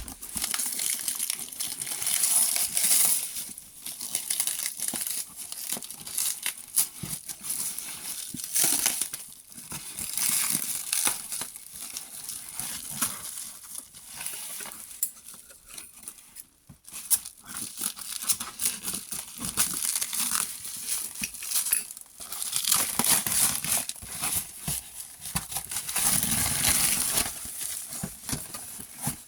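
Action figure packaging being handled and opened: plastic and cardboard crinkling and rustling in uneven bursts, with a brief pause about halfway through.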